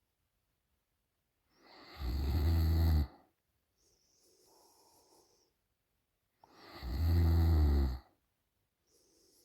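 A woman snoring in her sleep: two loud, low snores about five seconds apart, each lasting about a second and a half, with a soft breath between them.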